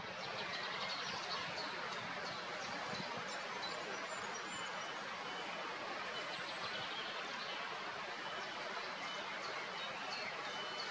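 Steady outdoor background hiss with faint, high bird chirps and calls scattered through.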